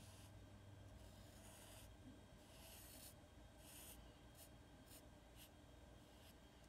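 Black Sharpie marker tip drawing on paper: faint scratchy strokes, a few longer ones in the first four seconds, then quick short ones.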